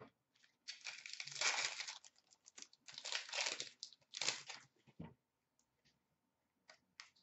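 An Upper Deck hockey card pack wrapper being torn open and crinkled: three bursts of rustling, about a second in, around three seconds in and just past four seconds, then a few light clicks near the end.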